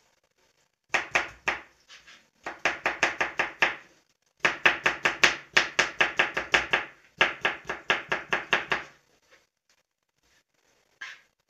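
Kitchen knife slicing a red bell pepper on a plastic cutting board: quick, even chops at about five a second, in four runs with short pauses, stopping about nine seconds in. One softer knock follows near the end.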